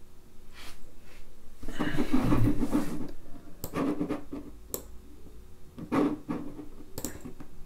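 Scuffling and rustling as a person shifts at a desk, then a few separate clicks and knocks of a computer mouse and keyboard being handled.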